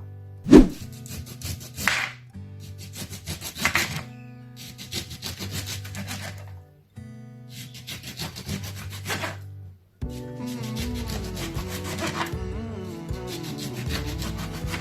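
Ingredients being cut with quick back-and-forth strokes on a chopping board, in runs of a second or two with short pauses, over soft background music.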